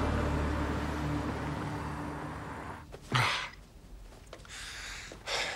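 A car driving away, its steady running sound fading out over the first three seconds. About three seconds in there is a short, sharp breath, followed by quieter breathing sounds.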